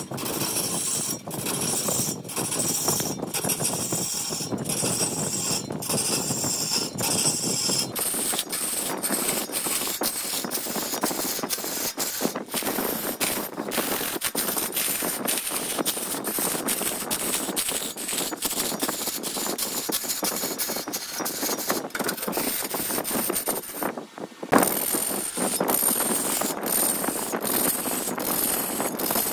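Wood lathe running, with a hand tool cutting into the spinning wood, making a continuous rough scraping noise. The sound changes about a quarter of the way in and briefly drops out near the end.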